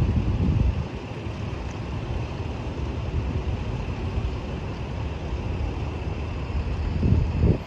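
Wind buffeting the microphone in strong gusts at the start and again near the end, over a steady low vehicle rumble.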